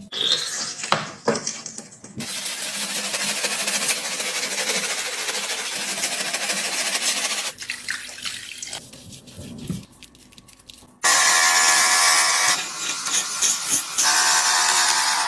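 Water running from a tap for about five seconds, used to rinse a squishy toy. After a quieter stretch come two loud buzzing bursts from a small motor.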